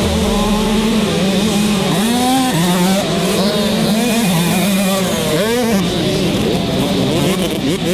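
Motocross dirt bike engines running hard at high revs, the main engine's pitch dipping briefly about two and five and a half seconds in, with other bikes' revs rising and falling around it.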